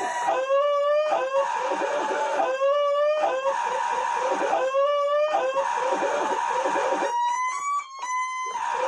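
A man's high-pitched, squealing laugh, sampled and retriggered in a loop, so that the same shriek recurs about every two seconds between breathy, noisy stretches. Near the end it breaks into a run of short rising squeals.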